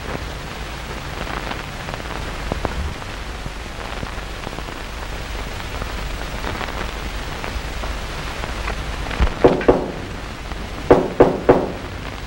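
Knocking on a door: three quick knocks, then about a second later three more, over a steady hiss.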